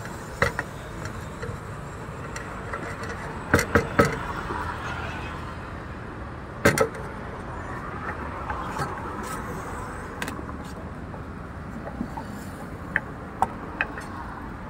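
Steady street traffic noise with scattered sharp knocks of cooking utensils against a metal pan: a quick run of three about four seconds in, a double knock near seven seconds, and lighter taps near the end.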